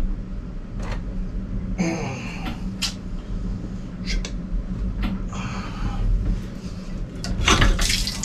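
Coolant water splashing and trickling in a diesel engine's cylinder block, with a few sharp metal clicks over a steady low hum.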